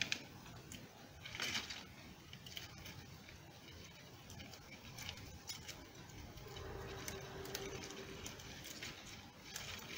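Soft clicking and rustling of dry twigs being handled and bundled, with plastic gift ribbon being tied around them.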